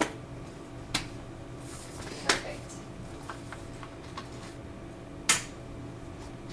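A few sharp, separate clicks, four loud ones spread over several seconds with fainter ticks between them, over a steady low hum.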